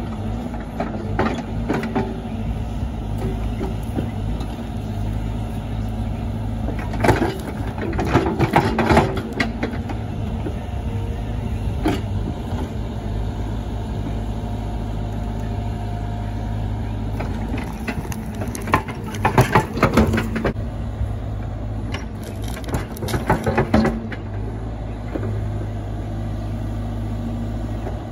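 Steady low rumble of a car's engine and road noise heard inside the cabin while driving. Three short clusters of clicks and knocks break through it, about 7 seconds in, around 19 seconds and near 23 seconds.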